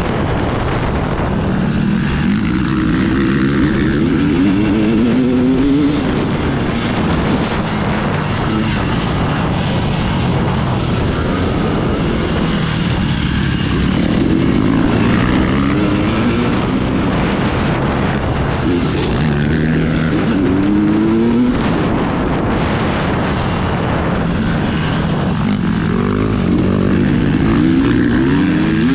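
KTM 300 EXC's single-cylinder two-stroke engine under hard riding, its pitch climbing as it accelerates and dropping back, about four times, over a steady rushing noise.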